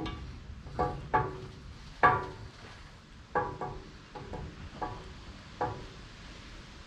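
Metal parts clinking and knocking against each other, about eight irregular strikes, each ringing briefly.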